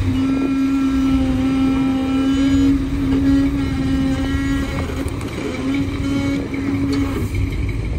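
Off-road buggy's engine held at high revs with a steady note while it crawls up a slickrock ledge; the note drops briefly about five seconds in and cuts out about a second before the end.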